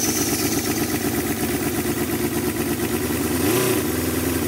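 Cison model V8 engine in an RC crawler running with a rapid, even firing beat while it drives its transmission in high range. About three and a half seconds in it revs up briefly and drops back.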